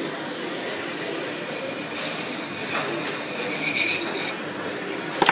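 Hand-held turning tool cutting the inside of a pewter tankard spinning on a lathe, giving a steady high-pitched squeal over the running lathe. The squeal fades about four and a half seconds in, and a sharp knock comes at the very end.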